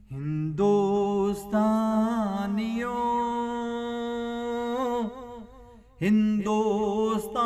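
A man singing a Punjabi devotional song, drawing out the word "Hindustanio" in long, wavering held notes. The line breaks off about five seconds in and starts again at about six.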